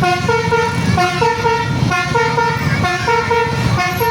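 Bus 'telolet' basuri multi-tone musical horn playing a short stepped melody of loud horn notes over and over, about once a second, over a low rumble.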